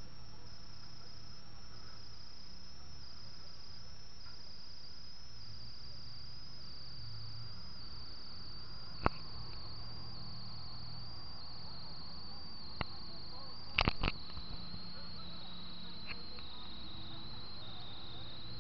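Boat engine running with a steady low hum under a high, steady whine that slowly falls in pitch, and a few sharp knocks from about halfway on.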